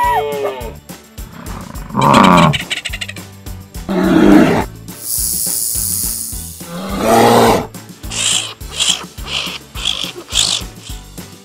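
A string of wild animal calls over light instrumental music: deep growling roars, a steady hissing rattle lasting over a second, another deep call, then a quick run of short, high chirps.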